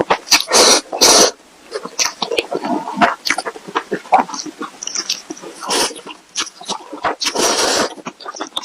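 A person slurping instant noodles and chewing with wet mouth clicks and smacks. Longer slurps come at the start, about six seconds in, and again about seven and a half seconds in.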